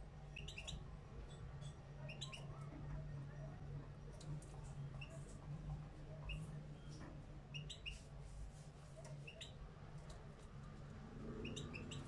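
Caged European goldfinch of the small parva race giving short, high chirping notes in little clusters, a few every second or two, over a steady low hum.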